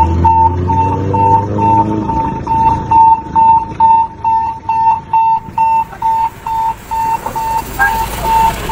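An electronic beeper or alarm sounding a single high tone in short, rapid beeps, about three a second, steadily on and on.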